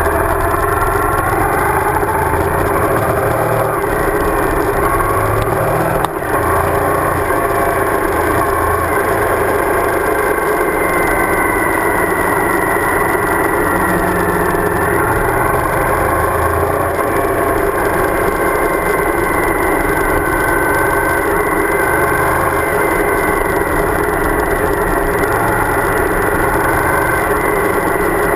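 Suzuki DL1000 V-Strom's V-twin engine running under way on a gravel road, its pitch rising and falling with the throttle, over a steady rush of wind and road noise.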